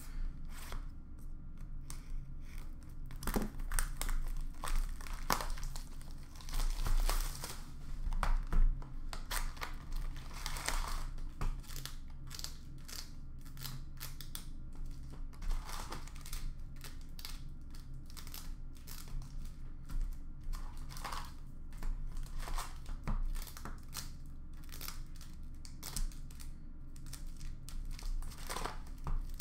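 A cardboard box of Upper Deck Extended hockey cards being opened and its foil-wrapped packs handled, a string of short paper-and-foil rustles, crinkles and clicks.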